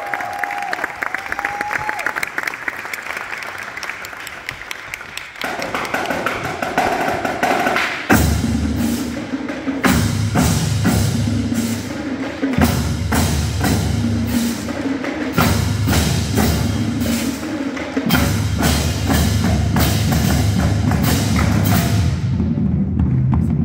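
Marching percussion battery (snare drums, tenor drums, bass drums and cymbals) playing together. It opens with quicker, quieter drumming, and about eight seconds in the deep drums come in and the sound grows louder and fuller.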